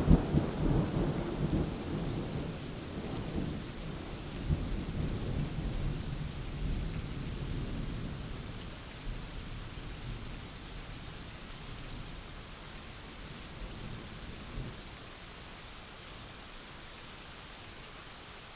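Recorded thunderstorm: a rumble of thunder, loudest at the start, dies away over about fifteen seconds under a steady hiss of rain.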